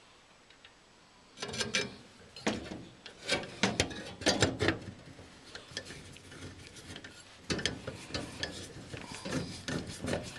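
Hand work on a furnace's sheet-metal parts with a screwdriver: irregular metal clicks, scrapes and rubbing, starting about a second and a half in.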